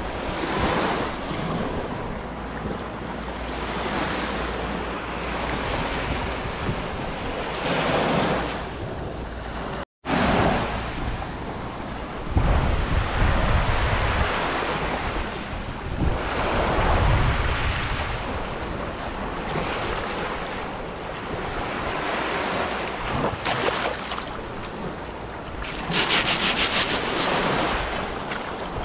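Sea waves washing up onto a beach, swelling and fading, with wind buffeting the microphone in low rumbling gusts. The sound drops out for a split second about ten seconds in.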